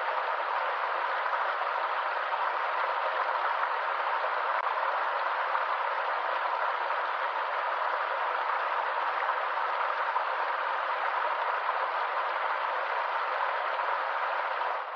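Stream water running steadily over rocks, an even rushing hiss with no let-up.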